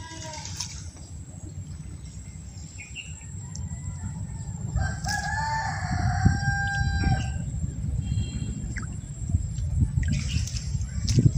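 A rooster crowing once: one long call starting about five seconds in and lasting a couple of seconds, over a steady low rumble.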